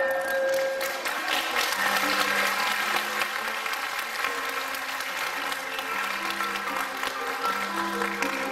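Audience applauding steadily, with soft sustained music notes underneath from about two seconds in.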